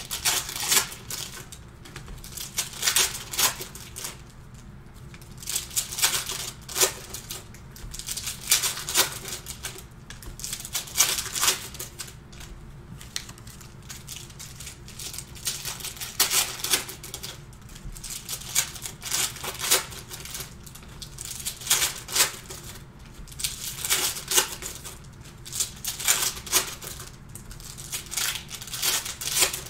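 Computer keyboard typing in short bursts of rapid clicks with pauses of a second or two between them, over a faint steady low hum.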